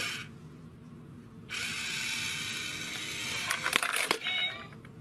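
Toy cat coin bank at work: its small motor whirs steadily for about two seconds as the paw takes the coin, then a few sharp clicks near the end as the coin goes in and the lid closes.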